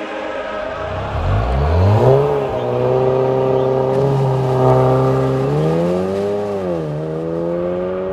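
Audi TT's engine revving up as the car pulls away, its pitch rising about a second in and then holding steady. The pitch climbs again and drops back shortly before the end.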